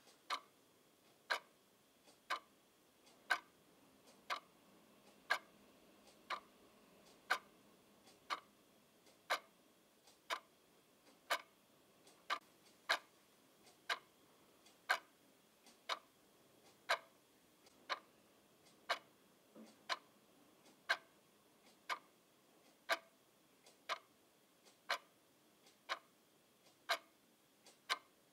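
Clock ticking steadily, about one tick a second, the ticks alternately louder and softer in a tick-tock pattern.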